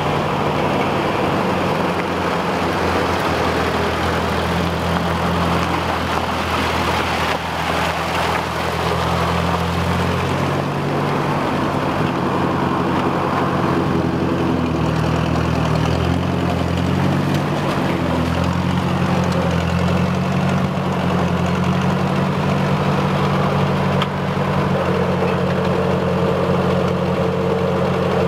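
Ford 640 tractor's four-cylinder gasoline engine running steadily as the tractor is driven, its note wavering in pitch for a while in the middle.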